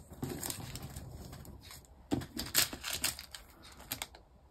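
Small plastic zip-lock bags of diamond-painting drills being handled and opened by hand: crinkling plastic with scattered sharp clicks, a cluster of them about two to three seconds in.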